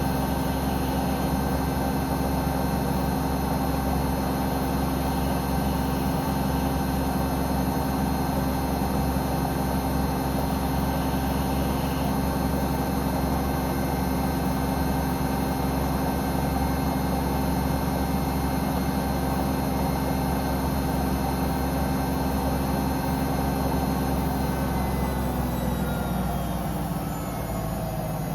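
Samsung Eco Bubble digital inverter washing machine on a fast spin: a steady whine of several tones from the motor and drum. Near the end it begins to wind down, the tones falling in pitch.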